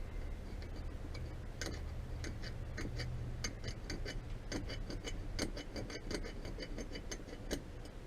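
Irregular light metallic clicks and taps, a few a second and quicker in the second half, from hand tools working a stuck part back and forth on a motorcycle engine. A low hum stops about halfway through.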